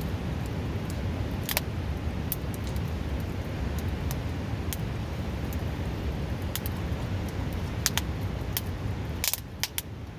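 Wood fire crackling with scattered sharp pops, several close together near the end, over the steady rush of a river close by.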